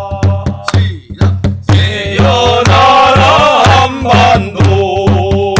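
A barrel drum beaten in a steady beat of about three strokes a second, under a held chanting voice. From about two seconds in, the voice rises and wavers in pitch for a couple of seconds before settling back into the drone.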